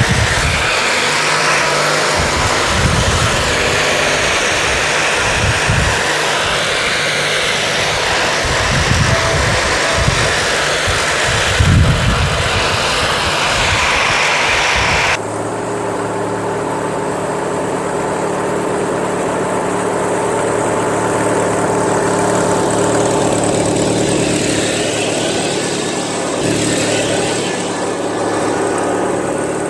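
The Craftsman LT1000 lawn tractor's Briggs & Stratton 19.5 hp opposed-twin engine runs while the tractor is driven, with wind buffeting the microphone. About halfway through the sound cuts abruptly to the engine running steadily, without the buffeting.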